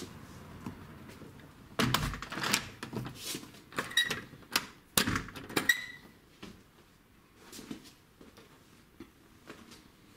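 A back door with a lever handle being shut and latched: a run of clacks, knocks and latch clicks lasting about four seconds, with a brief metallic ring twice. Faint handling ticks follow.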